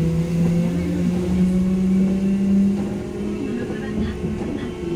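A Randen electric tram running on street track, its motor whine climbing steadily in pitch as it picks up speed, then easing off about three seconds in.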